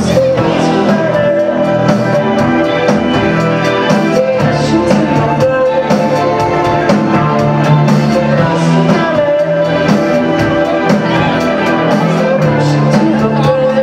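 Indie rock band playing a song live, with electric guitar and a steady drum beat.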